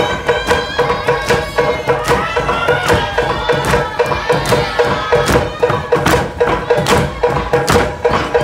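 Traditional Niuean drumming, log and skin drums beating a fast, even rhythm, with voices singing over it.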